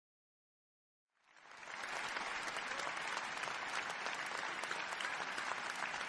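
Audience applauding, a dense steady clatter of many hands that fades in from silence about a second in.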